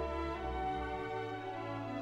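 Background music with slow, held notes.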